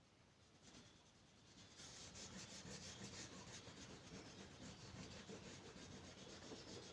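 Wax crayon rubbing back and forth on paper while colouring in. It is faint, and the quick scratchy strokes start about two seconds in.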